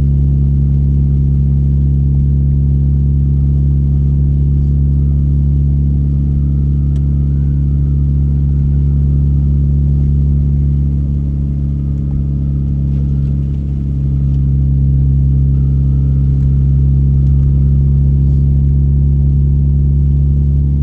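A car driving at a steady speed: a steady low engine hum with road rumble, dipping slightly about two-thirds of the way through.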